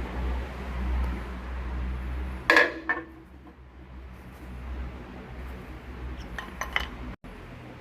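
Low steady rumble of a car moving on the road, with a sharp metallic clunk and rattle about two and a half seconds in, a smaller knock just after, and a few lighter metallic clicks near the end: the knocking noise from the car's undercarriage.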